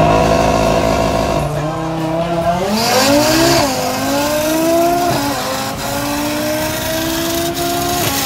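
Drag-racing car under full acceleration. The engine holds steady high revs at first, then climbs through the gears, with upshifts about three and a half and five seconds in, and pulls on in the next gear.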